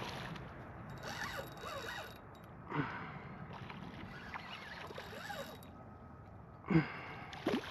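Quiet creaking and rustling of a fishing kayak and its gear being handled, with a couple of short knocks about three and seven seconds in.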